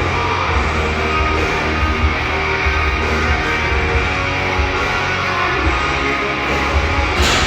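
Loud rock music with guitar playing continuously, with one sharp knock near the end.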